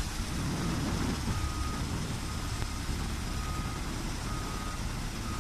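Railway track-maintenance machine's engine running with a steady low rumble, while a warning beeper sounds about once a second, each beep about half a second long.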